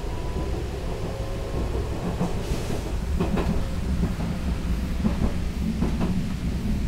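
Inside a streetcar as it runs: a steady low rumble with a few sharp knocks and clicks scattered through it.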